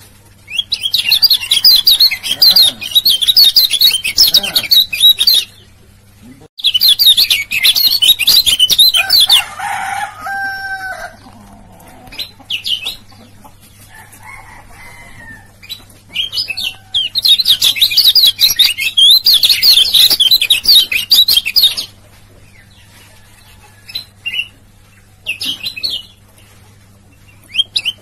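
Male kecial kuning (lemon-bellied white-eye) singing: long bursts of rapid, high chattering twitter lasting several seconds each, with pauses between and short snatches near the end. A lower, drawn-out call sounds about ten seconds in.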